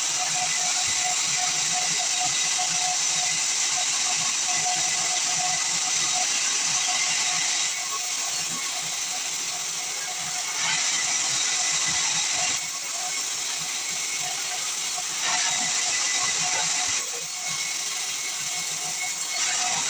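Band sawmill blade cutting through pine, a steady hissing machine noise whose loudness drops and rises in steps every few seconds.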